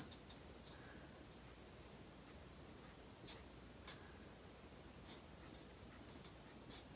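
Faint scratching of felt-tip markers on paper, a few short strokes as dashed stitch lines are drawn, over quiet room tone.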